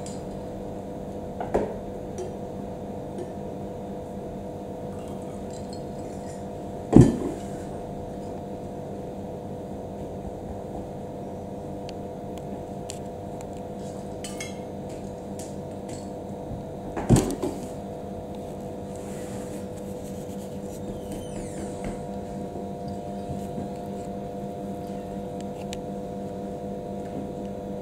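Steady hum in a quiet room, broken three times by short dull knocks, the loudest about seven seconds in and another about seventeen seconds in, as a dancer's body shifts and bumps against a cloth-covered table.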